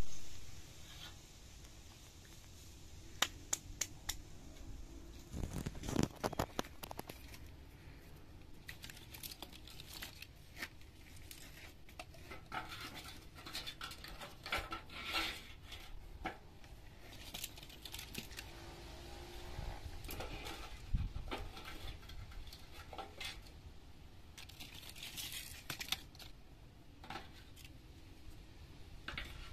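Dry kindling sticks and tinder being handled and laid in a round metal tray to build a fire: scattered light clicks and knocks of wood, with scratchy crinkling of the dry tinder.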